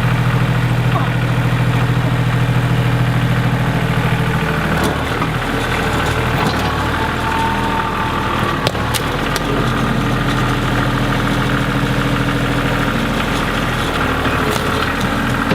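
Engine idling steadily, its pitch shifting about five seconds in and again near ten seconds as it is worked, with a few knocks.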